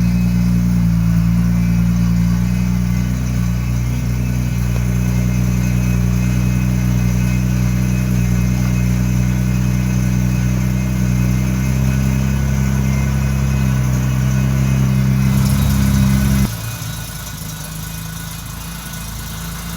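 A 1964 Jaguar E-type's 3.8-litre straight-six engine running steadily. About three-quarters of the way through the sound changes abruptly and drops to a quieter level.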